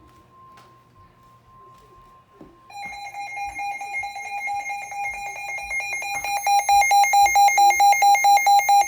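A faint steady alert tone near 1 kHz, typical of the weather-radio warning alarm tone, stops about three seconds in. An electronic alarm then starts beeping rapidly, about four beeps a second, and gets much louder for the last few seconds.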